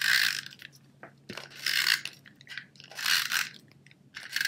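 Snail Adhesive tape runner drawn across the back of a cardstock piece, laying down adhesive in short noisy strokes: three about a second and a half apart, and a fourth starting near the end.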